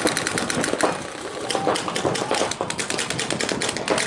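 Paintball markers firing in rapid streams of pops, about ten or more shots a second. The firing eases briefly about a second in, then picks up again.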